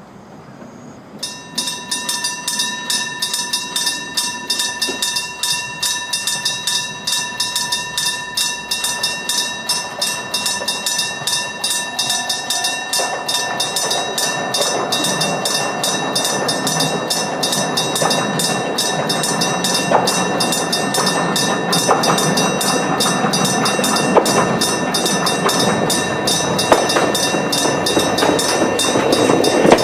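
Electric level-crossing bell with a metal gong starts up about a second in and keeps ringing in rapid, regular strokes. From about halfway a train's running noise builds beneath it and grows louder toward the end as the train approaches.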